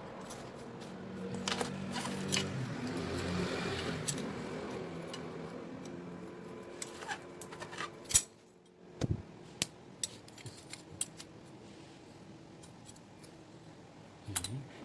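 Light metallic clicks and clinks of chainring bolts, an Allen key and the chainring being handled while an oval chainring is fitted to a road bike crankset, with the sharpest click about eight seconds in.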